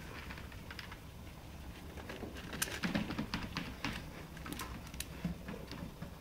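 Home treadmill running with a steady low hum from its motor and belt, with scattered light clicks and taps as a ginger cat walks on the moving belt.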